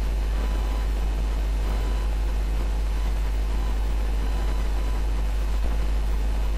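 A steady, low electrical hum with a faint hiss, unchanging throughout.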